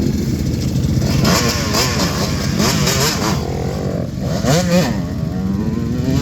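ATV engine running and being revved, its pitch rising and falling several times, over a steady low rumble.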